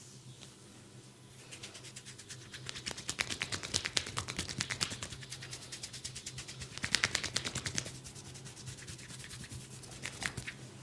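Massage strokes from a barber's hands on the client: a fast, even run of short rubbing strokes, several a second, swelling twice before easing off, with a few more strokes near the end.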